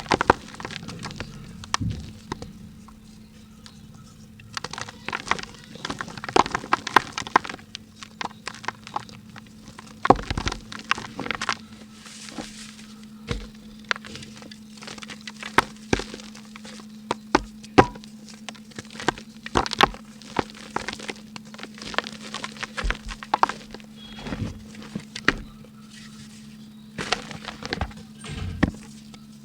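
Dry pink ASMR mud crumbled by hand: irregular crisp cracks and crunches as chunks snap apart, some with soft low thuds. A faint steady hum runs underneath.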